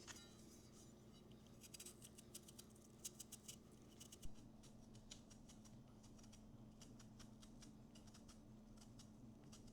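Near silence: room tone with a steady low hum and faint, scattered small clicks and ticks, closer together in the first half.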